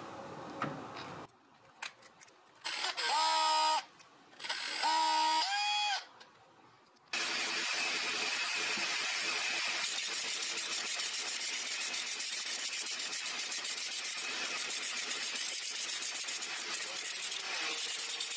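A power tool's motor gives two short runs about three and five seconds in, its pitch rising as it spins up. From about seven seconds in it runs steadily with a hiss while it spins a wooden handle held in its chuck.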